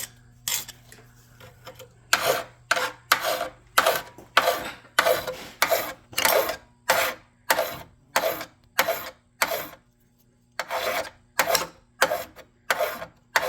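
Hand file cutting metal in steady one-way strokes, about one stroke every half second to three quarters of a second, with a short pause about ten seconds in.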